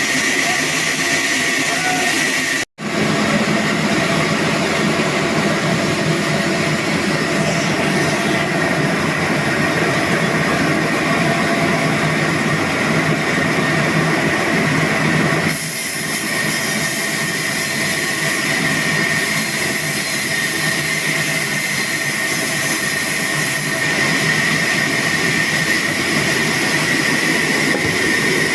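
Sawmill saw running steadily with a constant high whine over dense machine noise. The sound cuts out for an instant about three seconds in and changes slightly about halfway through.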